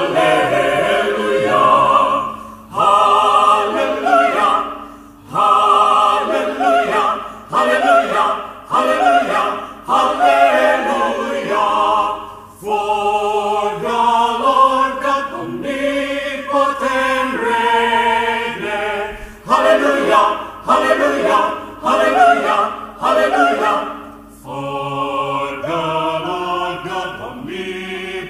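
Mixed choir singing in harmony, in phrases of about two to three seconds each, with a short dip between phrases.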